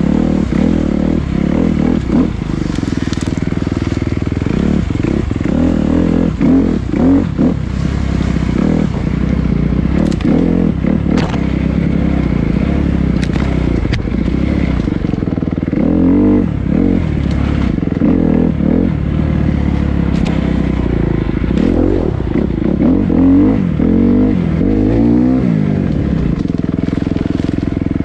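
Dirt bike engine running as it is ridden up a trail, heard close from on the bike, its revs rising and falling repeatedly with the throttle. Scattered sharp clicks and knocks sound over the engine.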